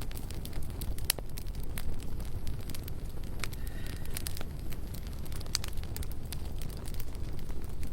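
Campfire burning: a steady low rumble of flames under scattered sharp crackles and pops of burning wood, a few louder pops standing out.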